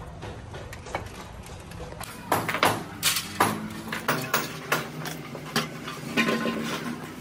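Small metal and rubber parts of a disassembled air brake valve clicking and knocking against each other and on a wooden workbench as they are handled and set down. The first two seconds are quieter, then a run of irregular sharp clicks follows.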